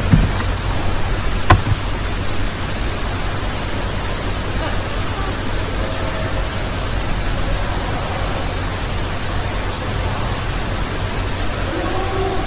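Steady hiss and low hum of an open microphone, with a single sharp click about a second and a half in.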